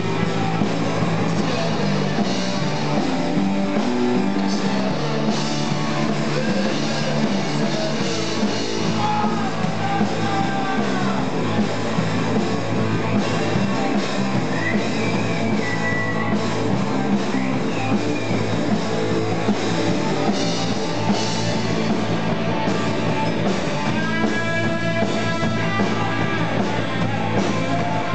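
Live rock band playing: electric guitars over a drum kit, loud and continuous.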